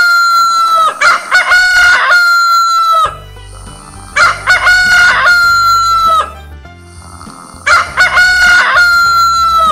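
Rooster crowing cock-a-doodle-doo, three full crows about three seconds apart after the tail end of an earlier one, each ending in a long held note. Soft background music fills the gaps between crows.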